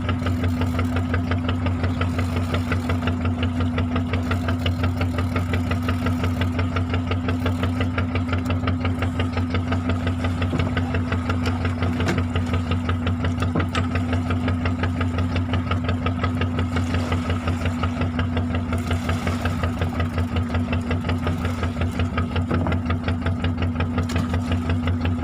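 Fishing boat's engine running steadily, a low pulsing hum that stays even throughout.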